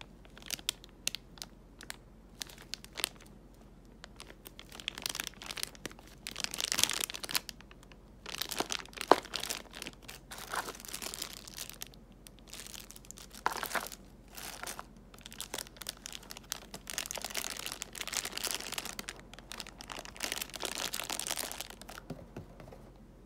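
Clear plastic packaging bags crinkling and rustling as they are handled, in irregular stretches, with scattered sharp clicks; the loudest click comes about nine seconds in.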